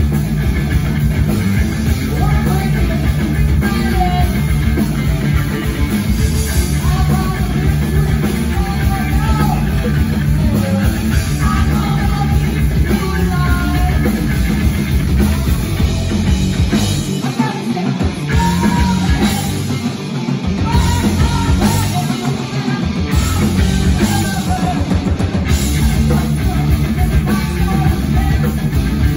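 Live rock band playing loud, distorted electric guitar, bass guitar and drum kit, with a female lead singer's voice on top. The bottom end drops out briefly a few times past the middle.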